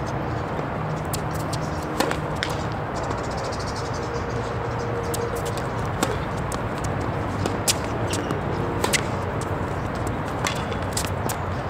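Tennis balls being struck and bouncing on the court: scattered sharp pops at irregular spacing over a steady background murmur.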